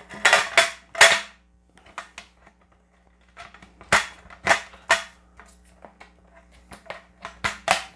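Abenaki aluminium roll table being assembled: the slatted aluminium top and frame poles clack as the poles are snapped into the slots under the top and the slats are pressed down. Sharp metallic clicks and knocks come in three clusters, near the start, around the middle and near the end.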